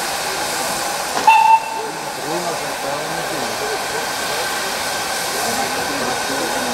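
Steam locomotive at a standstill, venting steam from the top of its boiler with a steady hiss. About a second in there is a brief, high whistle toot, and voices murmur faintly underneath.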